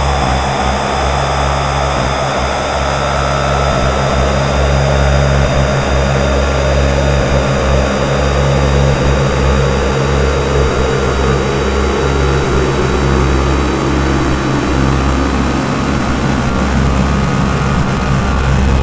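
DIY synthesizers playing a noise drone, with delay and reverb: steady low droning tones under a hissing band of noise that slowly sweeps down in pitch.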